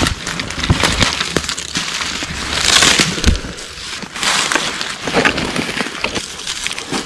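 Footsteps crunching and rustling through dry leaf litter and brush, with irregular crackles and a louder stretch of rustling about three seconds in.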